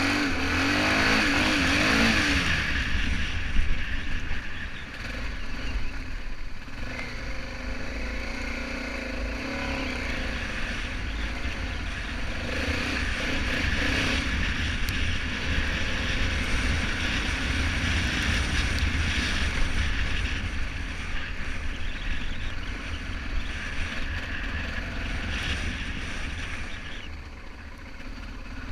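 BMW F650GS motorcycle engine running as the bike is ridden, its pitch rising and falling in the first few seconds, with wind buffeting the camera microphone.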